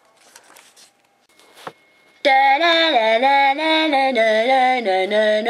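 Faint rustling, then about two seconds in a female voice starts singing a loud wordless tune of held notes that step up and down.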